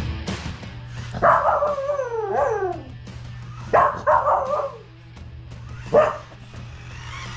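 Pomsky puppy vocalizing at a toy RC car. First comes a long yowling bark that falls in pitch, then a shorter one, then a single sharp bark about six seconds in: the dog is objecting to the car.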